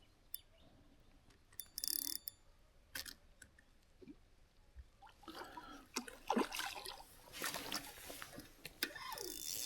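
Faint clicking and rattling of a fishing reel and tackle while a small trout is played in on the rod. The clicks come sparsely at first and more often from about five seconds in, with a steadier hiss near the end.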